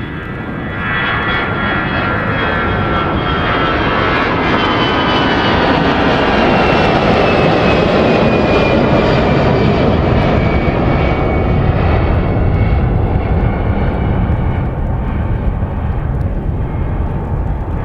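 Airliner engines passing close by: a loud roar that builds, peaks midway and eases off, with a whine that falls steadily in pitch as the aircraft goes past.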